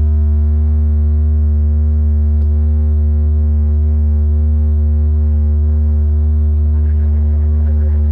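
Very deep bass tone held steadily, with fainter higher tones stacked above it, cutting off suddenly at the end: a sustained sub-bass drone from a DJ sound-check remix.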